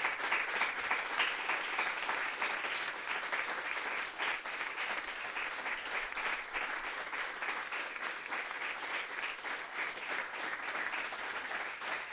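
Audience applauding: many hands clapping in a dense, continuous patter that eases slightly after about four seconds.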